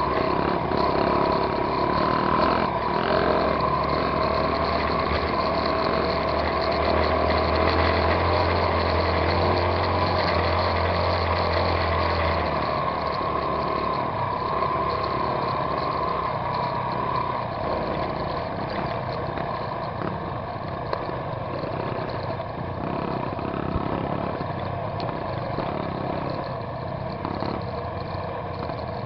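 Dirt bike engine running steadily at low trail speed, its note easing off after about seventeen seconds.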